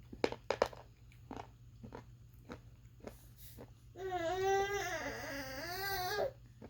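Sharp crunching bites into a hard white shale clay bar. These are followed, about four seconds in, by a single wavering whining cry lasting a little over two seconds, the loudest sound here.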